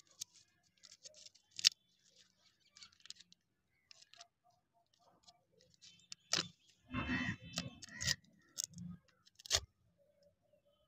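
The crinkly wrapper of a Mr Been lollipop crackling and rustling in the fingers as it is opened and the paper tattoo sheet inside is pulled out. It comes as scattered sharp crackles and clicks, sparse at first and busier and louder in the second half.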